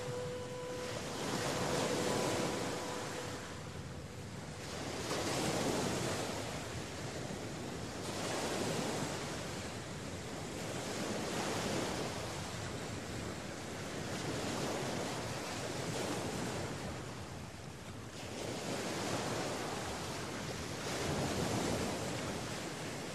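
Sea surf washing onto a shore, swelling and ebbing every few seconds. A faint steady tone fades out in the first few seconds.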